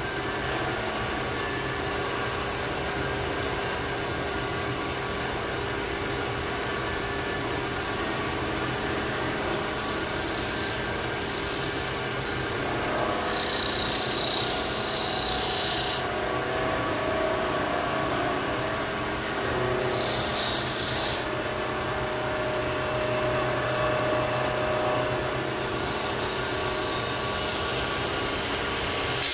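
Bridgeport vertical milling machine running, its cutter milling a metal block with a steady hum and whir. A brief high-pitched screech from the cut comes in about halfway through and again shorter a few seconds later.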